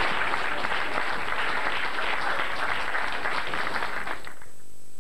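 Audience applause: many people clapping densely and steadily, stopping abruptly about four seconds in.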